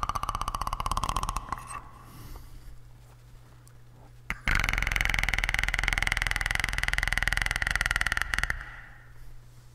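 A man's voice imitating the Predator's clicking snarl: a rapid guttural throat rattle that fades out about two seconds in, then a louder, longer one of about four seconds starting near the middle. A steady low hum runs underneath.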